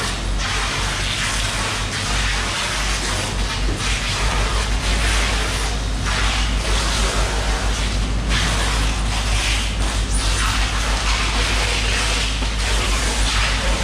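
Steady mechanical noise with a low hum that grows stronger about four seconds in.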